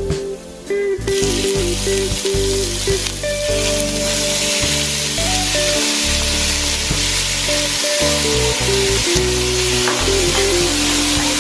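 Raw ground pork sizzling in hot oil and sautéed garlic. The loud sizzle starts suddenly about a second in as the meat goes into the pot, and goes on while the meat is stirred and spread with a plastic spatula.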